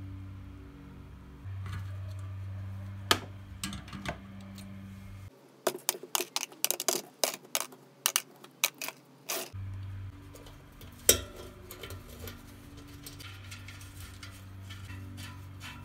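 Small steel bicycle-hub parts (loose ball bearings, cone, locknut and sprocket) clicking and clinking as they are handled and taken apart. Around the middle there is a quick run of sharp clinks as parts go into a plastic tub.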